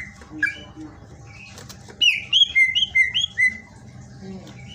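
Cucak ijo (green leafbird) singing: a brief chirp about half a second in, then a fast run of about six short, loud whistled notes that swoop in pitch.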